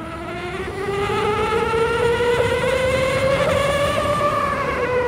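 Electric unicycle's hub motor whining as it accelerates, the pitch climbing steadily for about four seconds and then dipping slightly near the end.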